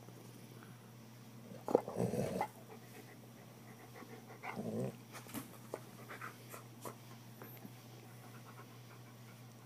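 A large dog huffing and making mouth noises as it play-bites a person's hand. There are two short, loud breaths about two and four and a half seconds in, then a few soft clicks.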